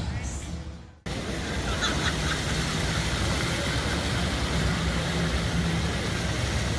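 Music fading out over the first second, then, after a sudden cut, a steady, even rush of water from a row of fountain jets spraying into a pond, with a low steady hum beneath it.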